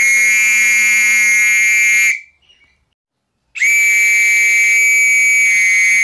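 Metal whistle blown in two long, steady, high-pitched blasts with no trill. The first lasts about two seconds; after a short gap the second lasts nearly three.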